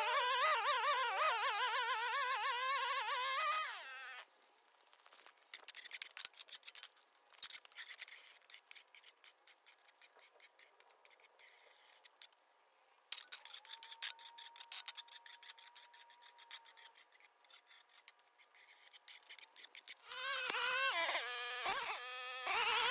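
A flat shovel scraping and scooping dirt and grass clippings off a concrete sidewalk edge, in short irregular strokes. A small engine runs for the first few seconds, and a string trimmer starts up near the end.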